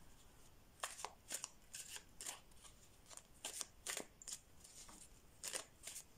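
Tarot cards being handled and shuffled: a series of faint, crisp card flicks and taps at an irregular pace.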